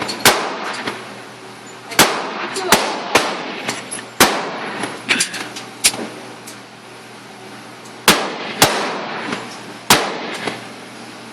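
Repeated gunshots from firearms around a shooting range: about ten sharp reports at irregular intervals, each with a short echo.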